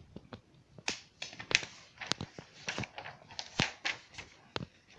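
Handling noise of a sheet of paper and a knife: about a dozen irregular sharp clicks and short crisp rustles.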